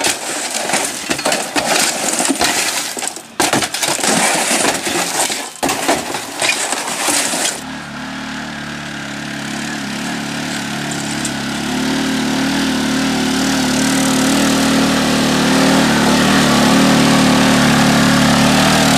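Shovels scraping and gravel clattering as it is shovelled into a cart. About seven and a half seconds in this gives way to an ATV engine running steadily, growing louder as it comes closer.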